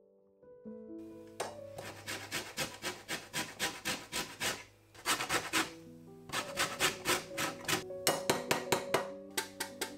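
A lemon rubbed up and down a stainless steel box grater, zesting its peel, in quick rasping strokes of about four a second. There is a short break about halfway before the strokes start again.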